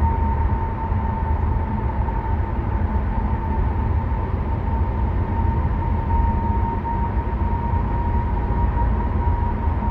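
Steady road and engine rumble inside the cabin of a BMW F07 5 Series GT 20d cruising, with a thin steady high whine running over it.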